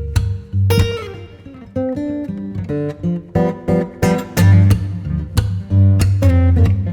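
Background music: an acoustic guitar playing plucked and strummed notes over a steady bass.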